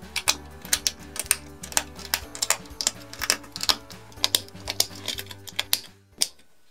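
Plastic LEGO pieces clicking and snapping together in quick, irregular succession as a small car is assembled and a wheel is pushed on, over light background music that stops about six seconds in.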